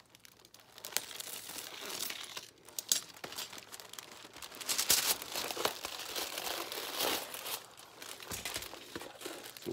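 Aluminium foil crinkling and crackling as it is pulled off the roll and wrapped and pressed around a cardboard tube. It starts about a second in and is loudest around the middle.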